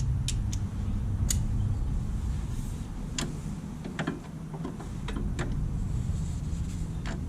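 Scattered short metallic clicks and clinks of a socket and breaker bar being worked onto a suspension bolt, over a steady low rumble.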